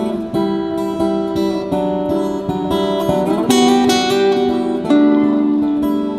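Acoustic guitar music: plucked and strummed chords with a steady run of note changes.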